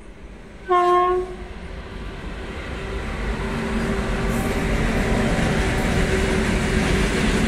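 An Indian Railways electric locomotive hauling a freight train gives one short horn blast about a second in. The rumble of the locomotive and its open wagons passing then grows steadily louder, with a steady droning tone.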